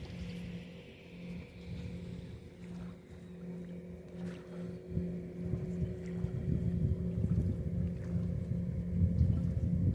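A low, steady motor-like drone with a faint hum, growing louder in the second half.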